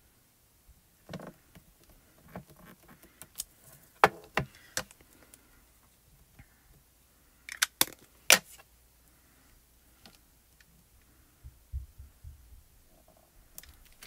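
Scattered sharp plastic clicks and taps of stamping: an ink pad dabbed onto a clear photopolymer stamp and a clear acrylic block set down on a glass craft mat, with a cluster of quick taps a little before the middle and a few soft thumps later on.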